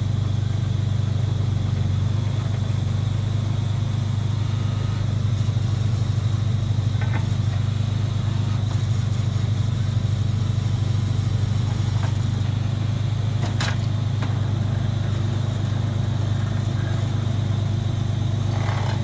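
Water-well drilling rig and its air compressor running: a steady low engine drone with a thin high whine above it. A few sharp knocks come through, the loudest about two-thirds of the way in.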